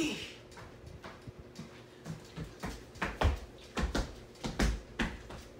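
A short squeal at the start, then a run of heavy thuds of feet stomping on the floor, irregular and growing louder from about two seconds in.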